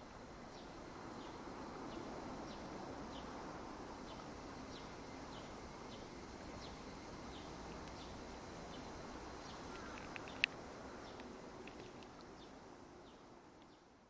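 Outdoor evening ambience: a steady low hum of background noise, with a short high chirp repeating about every two-thirds of a second from a small calling creature. One sharp click a little past ten seconds.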